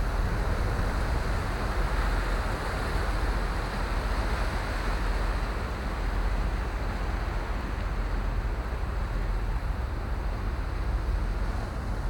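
Steady rush of wind on the microphone and water along the hull of the diesel icebreaker Kapitan Khlebnikov pushing slowly through pack ice, with a deep rumble underneath.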